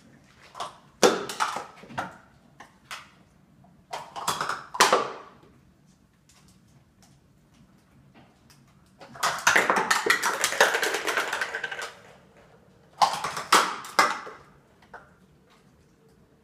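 Plastic stacking cups clattering and knocking as a cockatoo pulls them off a tower and they fall to the floor. It comes in bouts of sharp taps: about a second in, around four seconds in, a longer rattle of about three seconds from nine seconds in, and another bout near thirteen seconds.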